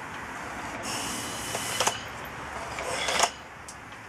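Compressed-air-driven, flywheel-assisted generator prototype running: a burst of compressed air from its push-button air blower hisses for about a second, and there are sharp clicks about two and three seconds in.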